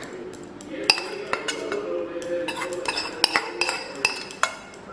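Metal spoon clinking against a metal cake tin while ladling syrup over the cake: a quick, irregular series of light clinks, many leaving a short high ring.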